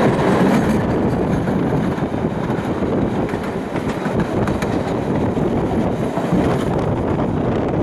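Steady running noise of a suburban train rolling along the track, heard from aboard a RIB stainless-steel suburban train, with wind on the microphone.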